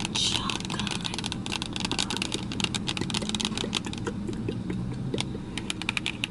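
Fast clicking and crinkling from a plastic bag of chocolates being tapped and handled right at the microphone, ASMR-style. A steady low hum runs underneath.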